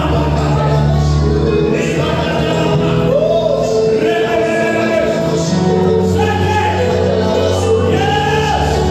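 Gospel music: voices singing long, held notes over steady sustained instrumental chords.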